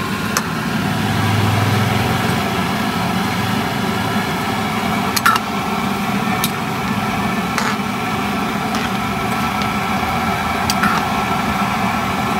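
Metal ladle stirring fish balls and kikiam in an aluminium wok, with a few sharp clinks against the pan, over the steady hum of an idling engine.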